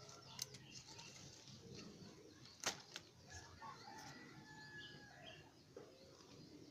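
A quiet background with a few faint, short bird chirps, and one sharp snap about two and a half seconds in as a ripe passion fruit (lilikoi, Passiflora laurifolia) is picked from the vine.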